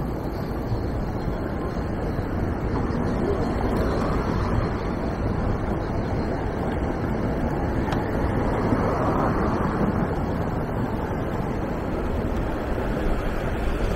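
City street ambience: a steady rumble of road traffic, with wind noise on the microphone. It swells a little a few seconds in and again around the middle.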